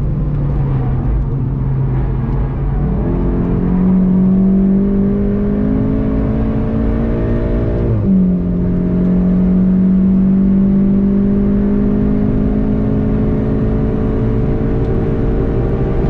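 Volkswagen Golf GTI TCR's turbocharged 2.0-litre four-cylinder, heard from inside the cabin. The engine note steps up at a downshift about three seconds in and climbs steadily under acceleration. It drops sharply at an upshift about eight seconds in, then climbs again as the car speeds up.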